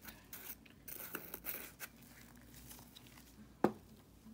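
Small handling noises from objects being moved about on a work surface: brief scrapes and rustles over the first couple of seconds, then one sharp click about three and a half seconds in.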